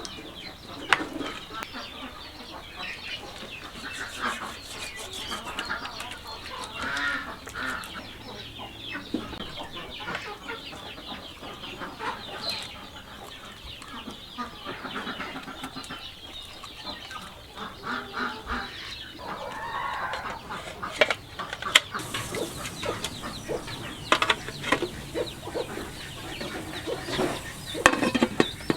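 Chickens clucking on and off, mixed with scattered sharp clicks and knocks.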